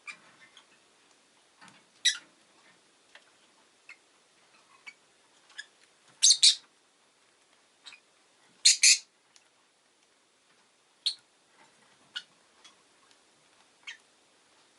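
Rosy-faced lovebird giving short, sharp chirps and squawks at irregular intervals; the loudest are two quick double calls about six and nine seconds in. Faint ticks are heard between the calls.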